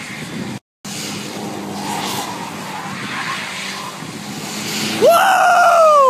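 A car sliding through a drift, engine running and tyres skidding. About five seconds in a loud tyre squeal rises sharply and then falls away. The sound drops out completely for a moment under a second in.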